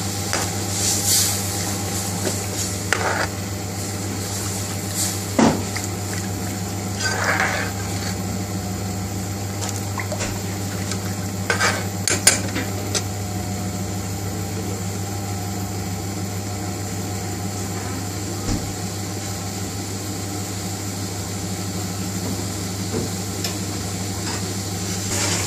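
A long metal spoon stirring lentils in an aluminium pan, with a few short clinks and scrapes against the pan, over a steady low hum and hiss.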